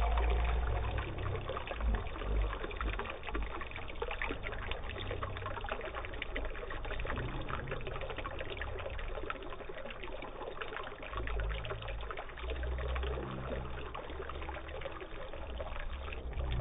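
Water pouring and trickling over a small model landscape of pebbles and leaves in a homemade flood demonstration, splashing steadily, with occasional low bumps.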